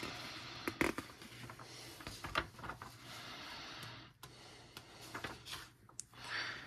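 Paper pages of a coloring book being turned and handled by hand: a steady rustling, broken by several sharp crackles.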